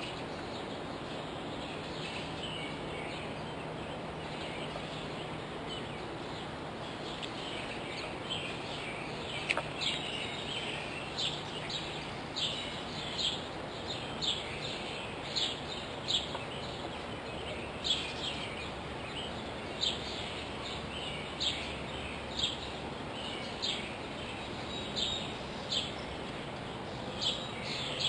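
A bird calling over and over, short high calls about once a second, starting about eight seconds in, over a steady background hiss.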